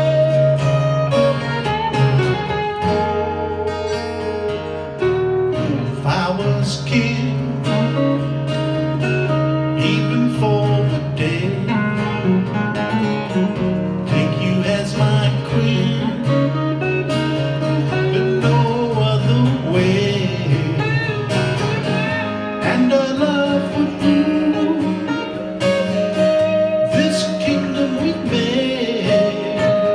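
Two acoustic guitars playing classic rock, strummed and picked, with a man singing over them in parts.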